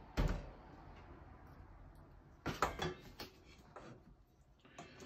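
Kitchen handling noises: a dull thump right at the start, then a short cluster of knocks and clicks about two and a half seconds in and a few lighter ones after, from cookware and cooked meat being handled on a metal tray.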